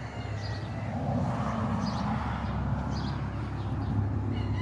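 Steady low outdoor hum, with a broad swell of noise in the middle that fades again, and a few short, high bird chirps.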